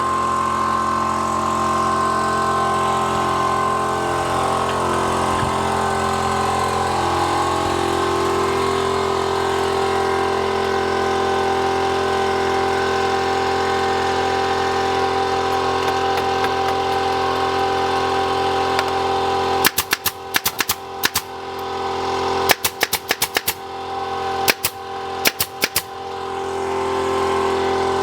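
A loud woodworking machine running with a steady, humming drone. Its pitch shifts a few seconds in, and near the end the sound breaks up into a series of rapid cut-outs and clicks before settling back.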